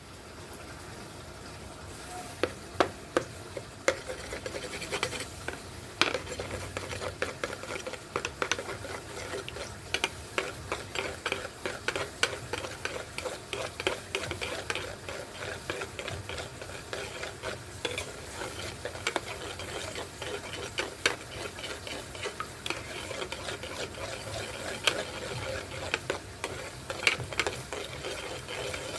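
A cooking utensil stirring and scraping in a pan, with irregular sharp clicks several times a second over steady sizzling of food frying in oil.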